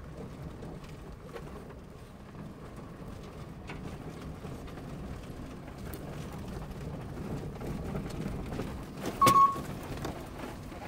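Car cabin noise while driving slowly over a rough dirt forest track: a steady low rumble with scattered small knocks and rattles from the bumpy ground. About nine seconds in, a sharp click and a short, loud beep.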